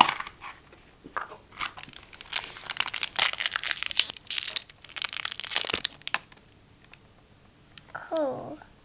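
Foil blind-bag wrapper crinkling and tearing as it is opened by hand, a dense run of crackles that stops about six seconds in. Near the end, a short voice with falling pitch.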